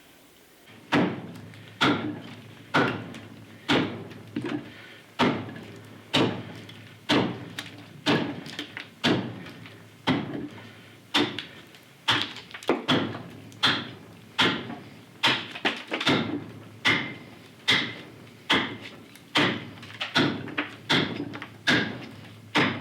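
Carving axe chopping into a green sycamore blank, striking about once a second, each blow a sharp knock into wet wood, as the pith and center are hewn away by hand.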